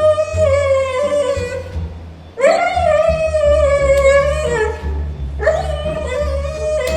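A frightened dog howling in three long, drawn-out cries of about two seconds each, the pitch sagging at the end of each cry.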